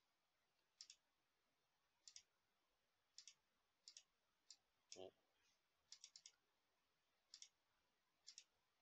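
Faint computer mouse clicks, mostly in quick pairs like double-clicks, about one set a second, with a softer, duller knock about halfway through.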